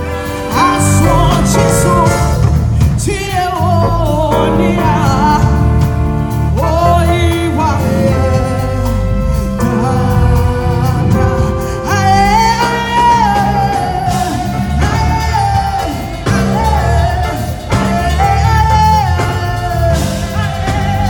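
A woman singing a gospel worship song into a microphone over instrumental accompaniment with a steady bass line, amplified through PA speakers.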